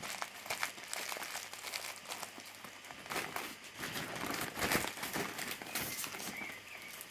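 Small plastic packets of nail gems crinkling and rustling as they are handled, with irregular crackles throughout.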